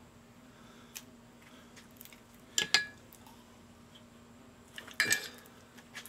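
Metal meat injector clinking against a glass mug: two short bursts of clinks about two and a half seconds apart as it is dipped into the injection liquid to refill and lifted out.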